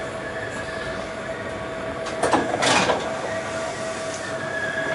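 Train standing at the platform: a steady hum with a higher whine, and a short hiss of released air about two and a half seconds in.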